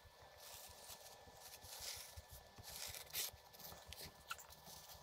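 Faint scratchy rubbing with a few light taps: a chalk marker's tip being drawn along the edge of a screwdriver on Kaizen foam.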